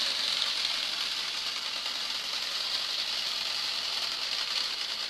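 Three-rail O-gauge model train, a steam-outline locomotive pulling cars, running on curved track: a steady high whirring rattle of the motor and wheels on the rails.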